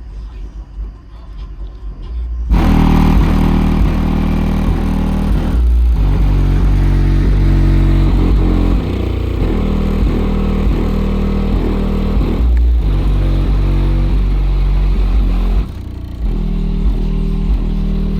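Car audio system playing bass-heavy music loud through newly installed speakers, cutting in about two and a half seconds in over the low rumble of the car; the bass notes change in steps and drop out briefly a few times.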